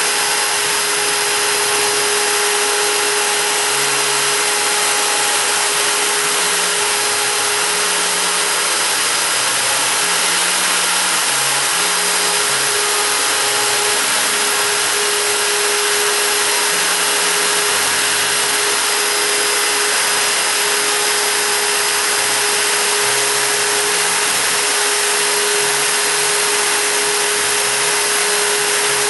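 High-Z S-1000 CNC router engraving wood with a 0.7 mm engraving bit: the spindle runs at a constant 25,000 rpm with a steady high whine and hiss. Under it, low hums from the axis drives change pitch every second or so as the cutter traces the design.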